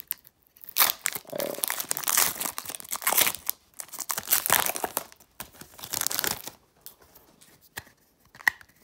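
Foil Pokémon booster pack wrapper being torn open by hand, in several bursts of tearing and crinkling over a few seconds. It goes quieter near the end, with only light handling as the cards come out.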